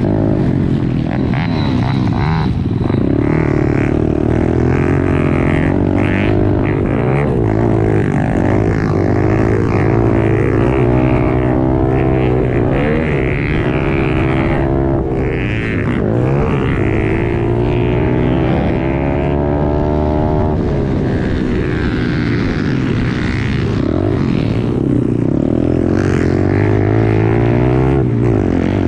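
Pit bike's small single-cylinder four-stroke engine at racing throttle, heard from on the bike, its revs rising and falling again and again through throttle and gear changes.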